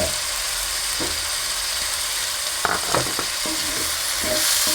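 Onion-tomato masala frying in coconut oil in a pan, with curry leaves and pandan leaves just added, making a steady sizzle. A few brief knocks from stirring come about halfway through and again near the end.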